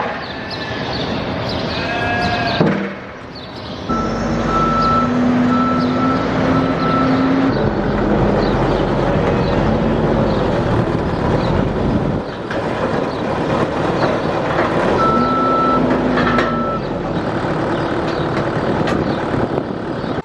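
Heavy farm machinery running steadily, with a warning alarm sounding a run of evenly spaced high beeps, then a second, shorter run of beeps later on.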